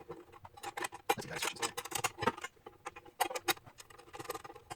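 Irregular light metallic clicks and clinks from hands threading a pressure washer fitting onto a surface cleaner and handling its metal mounting hardware.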